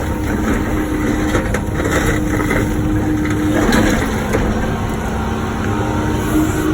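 Wacker Neuson ET 145 excavator's diesel engine running steadily under working load, with a steady whine whose pitch dips briefly partway through, and a few short crunching noises about two seconds in as the bucket works the blacktop.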